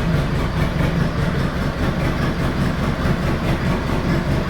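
An engine running steadily, with a faint regular clatter.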